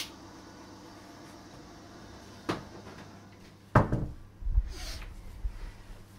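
A door being handled: a sharp click at the start, then a dull thud about two and a half seconds in and a louder knock with a short ring-out just before four seconds, followed by a low rumble.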